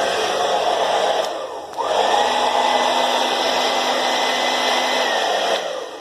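Philips hair dryer running, its small fan and motor blowing steadily after the fan was re-seated so its blades no longer scrape the plastic guard. It drops off briefly about a second and a half in, comes back up, and winds down near the end.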